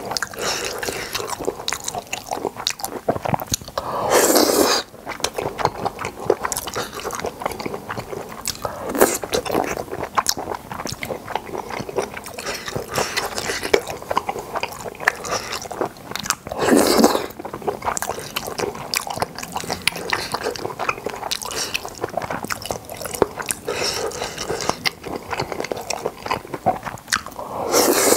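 Close-miked chewing of boneless chicken feet and glass noodles, with many small wet, crunchy clicks. Three longer, louder noodle slurps come about 4 seconds in, about 17 seconds in and at the very end.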